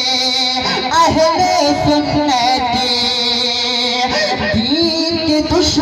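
Man singing a naat, an Urdu devotional song, unaccompanied into a microphone, in long melodic phrases with held, wavering notes.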